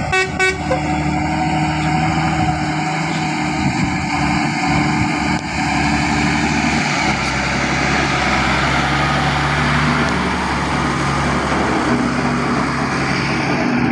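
A motor vehicle's engine running steadily and loudly, with a few quick pulsed horn tones right at the start.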